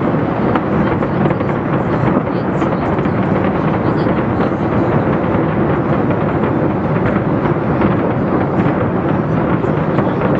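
Fireworks display: many overlapping bangs and crackles merging into a steady, thunder-like rumble with no break.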